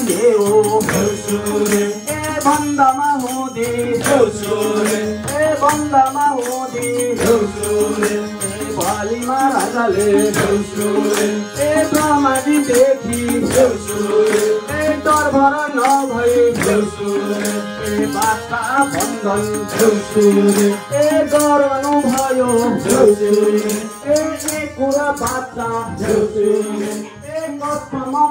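Deusi folk song sung by a group of voices over a steady held tone, with quick rattling percussion keeping the beat.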